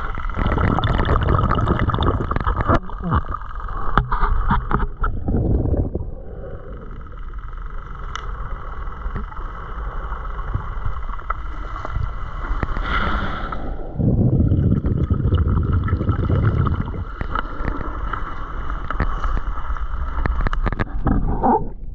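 Muffled underwater sound from a camera carried by a swimming snorkeler: low rushing and sloshing of water against the housing that comes and goes, the heaviest stretches at the start and from about 14 to 17 seconds, with a steady high whine underneath and scattered small clicks.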